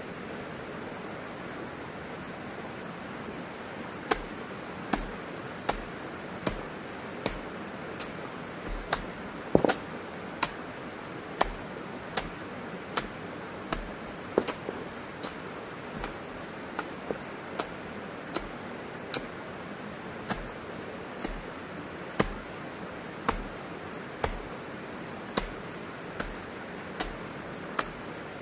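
Steady, evenly paced knocks, about one every 0.8 seconds, each a sharp click with a dull low thud, starting a few seconds in, over a continuous chorus of insects with a pulsing high chirp.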